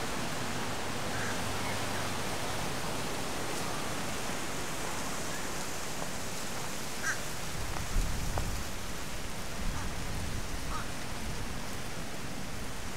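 Steady wash of surf and wind at the seaside, a constant even hiss, with a few faint short high calls and a low thump about eight seconds in.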